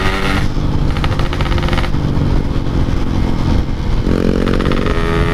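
Yamaha RX-King two-stroke single-cylinder engine through a Packing Power aftermarket exhaust, on the move. Its note drops as the throttle closes just after the start, and it coasts with a rapid crackle. About four seconds in, the pitch rises again as the throttle opens.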